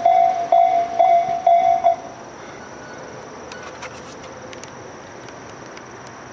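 Japanese level-crossing electronic bell making its 'pon-pon' tone, about two strikes a second, which stops about two seconds in, the sign that the crossing is clearing after the train. A few faint ticks follow over a low steady outdoor hiss.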